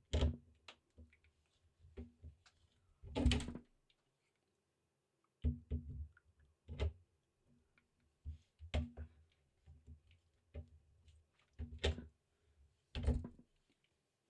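Handling noises of a camera being unscrewed, turned and screwed onto a 1/4-inch mounting screw: irregular knocks, clicks and rubbing of camera body against the mount, about a dozen in all, the loudest near the start, about three seconds in and near the end.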